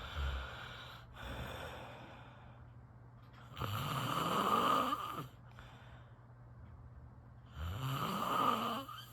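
A sleeping person snoring: two loud, drawn-out snores about four seconds apart, each rising in pitch, with softer breathing between.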